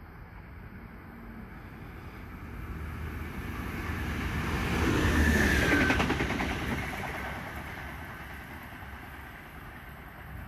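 Electric passenger train passing through the station at speed without stopping: the noise builds, peaks about halfway with a rapid run of clicks and a falling whine, then fades as it goes away.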